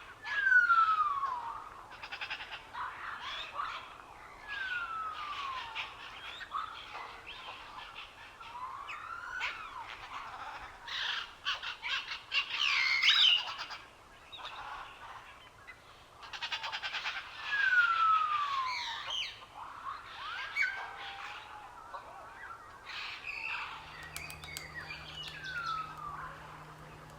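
Several birds chirping and trilling, with one bird repeating a clear whistle that falls in pitch, about a second long, every few seconds.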